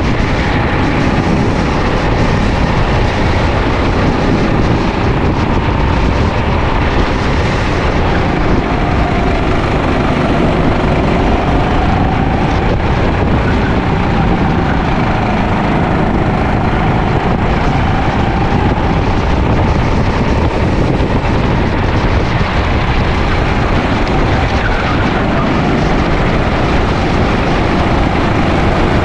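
Sodi LR5 rental kart's engine running under racing load, heard on board, its pitch slowly rising and falling as it speeds up and slows for corners, over heavy wind and road rumble.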